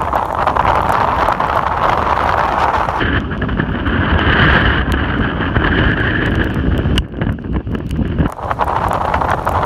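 Strong tropical-storm wind buffeting the microphone over heavy surf breaking on the beach. About three seconds in, the sound changes abruptly from a bright rushing to a deeper, rumbling buffeting with scattered crackles.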